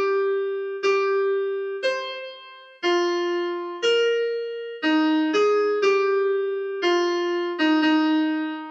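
Synthesized piano from notation-software playback picking out a single melody line, one struck note at a time, about one a second, each fading after the attack. Near the end it lands on a long low note that dies away.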